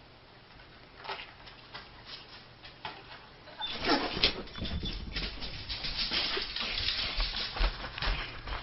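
Quiet room at first. About four seconds in, a dense run of rustling, thumps and clicks starts and keeps going: a dog jumping down from a bed and running off, and a hand-held camera being carried after it.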